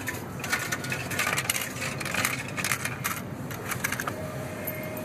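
Coins clattering and jingling through a self-checkout machine's cash unit, a dense run of metallic clinks lasting about four seconds. A short steady tone follows near the end.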